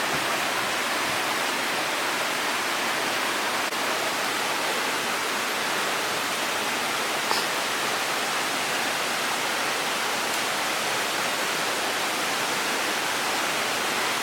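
Rushing river water: a steady, even rush that does not change.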